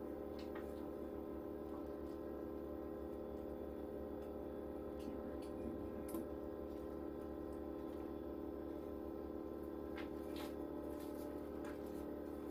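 Steady hum of a machine running in the room, several held tones that do not change, with a few faint clicks and taps over it.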